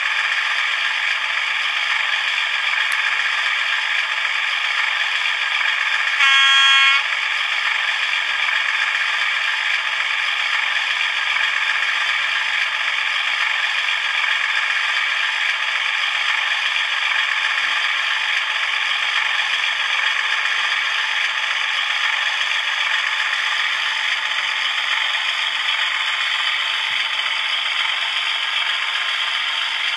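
Model Class 37 diesel locomotive and its hopper wagons running along model track with a steady rattling and clattering. About six seconds in, a short horn sounds.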